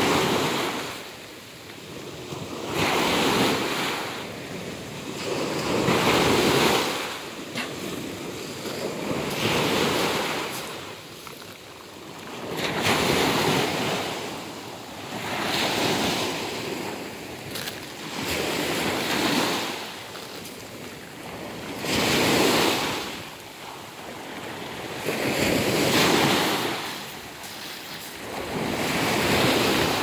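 Sea surf breaking and washing up the beach, each wave swelling and then falling away, about one every three seconds.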